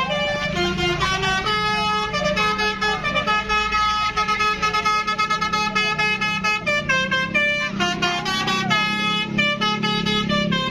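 Indonesian bus telolet horn: a Harapan Putra bus's multi-tone horns playing a rapid tune of short steady notes, over the low drone of the bus's engine.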